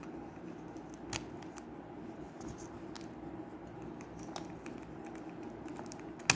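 Speed cube being turned by hand: scattered sharp plastic clicks, with one loud click near the end, over a steady low hum.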